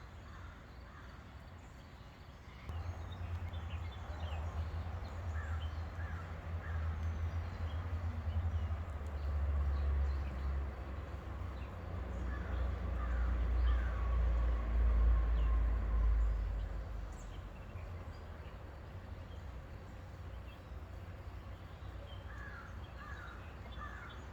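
A bird calling three times, each a quick series of about three harsh notes. A low engine rumble swells a few seconds in, grows loudest around the middle, and fades about two-thirds of the way through.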